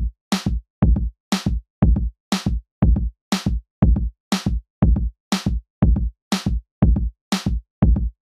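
Electronic music with a drum-machine beat that starts abruptly out of silence: a steady kick about twice a second with a crisp snare or clap on every other beat.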